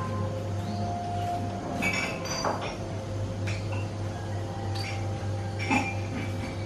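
Tableware clinking several times, short ringing clinks, over a steady low hum.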